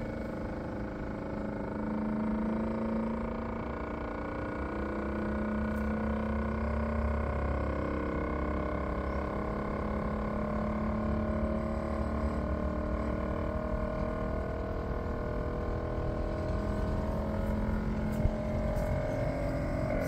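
Premium Levella mini-split outdoor unit running, its compressor humming in a steady drone with several steady tones, and one brief click near the end. The owner takes this humming for the sound of a compressor about to fail.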